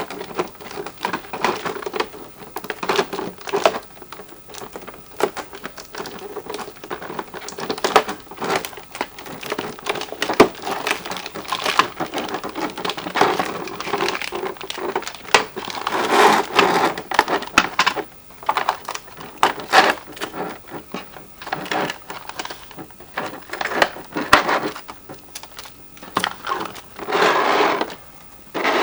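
Toy packaging being handled by hands: plastic and cardboard rustling and crinkling, with many small clicks and taps throughout.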